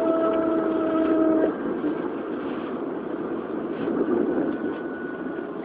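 Running noise inside an Odakyu 1000 series electric train motor car with Mitsubishi GTO inverter control, rumbling steadily along the rails. A steady whining tone cuts off suddenly about a second and a half in, and a fainter tone comes in near the end.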